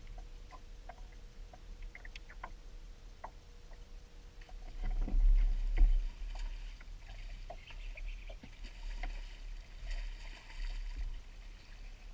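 Sounds of casting and working a rod from a bass boat's front deck. A faint steady hum and light clicks stop about five seconds in, then comes a loud low thump and rumble as the rod is swept up. After that there is a hiss with scattered clicks.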